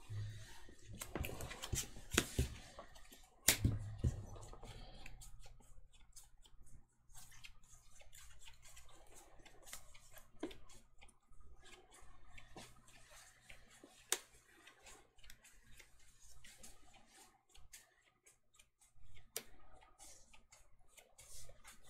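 Sleeved Magic: The Gathering cards being handled and shuffled in the hands: irregular light clicks and snaps, over a faint steady low hum.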